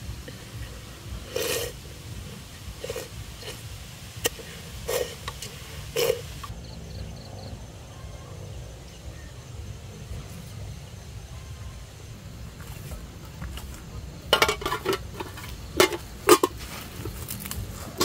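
Chopsticks scraping and tapping against a metal cooking pot while eating from it, four short strokes, then after a quiet stretch a burst of crackling and rustling in dry leaf litter near the end. A steady low rumble runs underneath.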